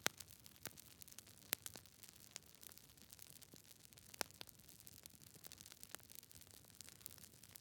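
Quiet wood fire crackling: irregular sharp pops and snaps of uneven loudness over a soft low hiss, with a few louder pops near the start, about a second and a half in, and about four seconds in.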